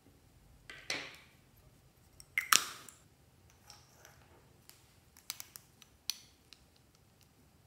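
Loose makeup glitter shaken out of its container onto a slime tray in two short spills, the second louder, followed by a few light clicks of plastic lip balm tubes being handled.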